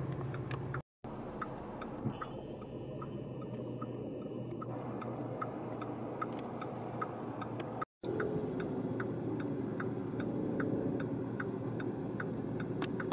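Car turn-signal indicator ticking steadily, about two to three ticks a second, over the low rumble of road noise inside the car.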